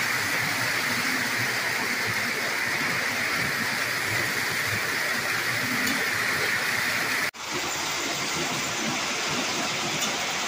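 Lionel O-gauge model trains running on three-rail track: a steady rolling whir with a hiss-like edge. It cuts out for an instant about seven seconds in, then carries on a little duller.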